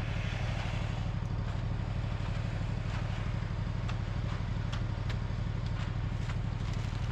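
An engine running steadily at an even speed, with a few light clicks and clatter scattered through it.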